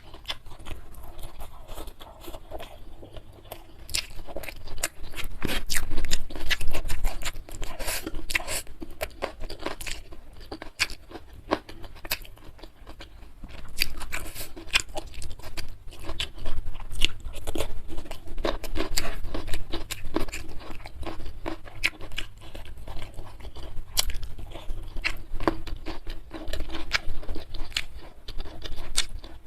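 Close-miked eating sounds: a person chewing and biting food, with a dense run of crunches and wet mouth clicks.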